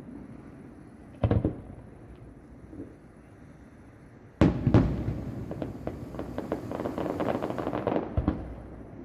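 Fireworks about a kilometre away: a double bang about a second in, then a loud bang and a second one a little after four seconds in, followed by about three seconds of rapid crackling and one more bang near the end.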